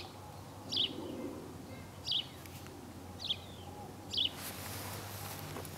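A songbird repeating a short, sharp, falling call note four times, about once every second and a bit. A low steady hum runs underneath, and a soft hiss swells in about four seconds in.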